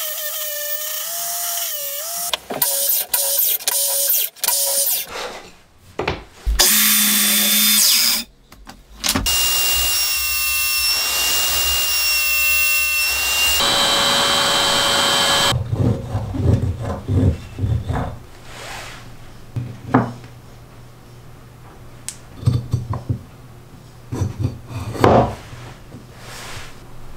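MTR-42 trim router running at full speed in a router table, a steady high whine as it cuts small wooden parts, heard in several edited stretches with the longest about a third of the way in. Quieter knocks and handling of wood follow near the end as the parts are fitted together.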